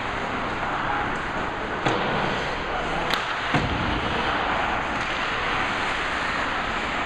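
Ice hockey play heard from rinkside: a steady wash of skates on ice and rink noise, with sharp clacks of sticks and puck about two and three seconds in and a low thump just after.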